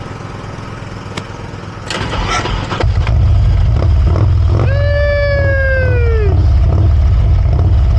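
Harley-Davidson motorcycle engine brought back with a jump starter: a short rough burst about two seconds in, then from about three seconds it runs loudly with a deep, steady rumble. A long falling tone is heard over it for about a second and a half near the middle.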